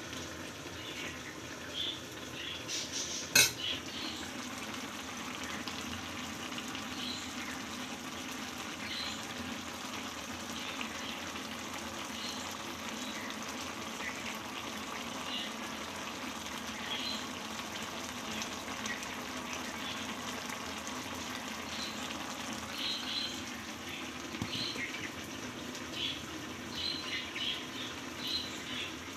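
Karahi of small fish, Malabar spinach and potatoes cooking in its own liquid on the stove with a steady sizzle, scattered with short high pops. One sharp metal clank of the pan about three seconds in.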